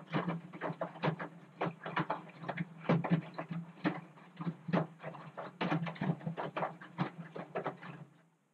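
Front-loading washing machine in its wash cycle: the drum turns and wet laundry sloshes and splashes in the water in irregular strokes, over a steady low motor hum. Shortly before the end the hum and sloshing stop suddenly as the drum comes to rest.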